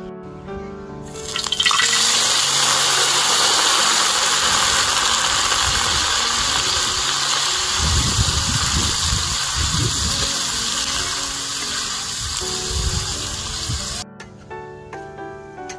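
Silkworm pupae deep-frying in hot oil in a wok: a loud, dense sizzle that starts suddenly a second or so in and cuts off abruptly near the end. In the middle a metal spatula scrapes and knocks against the wok as the pupae are stirred.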